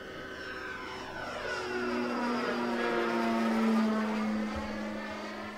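Electric RC model P-47 Thunderbolt on a 4S battery with its stock 14x12 wood propeller, making a flyby: a steady motor-and-propeller drone that swells to a peak about four seconds in, then fades as it passes.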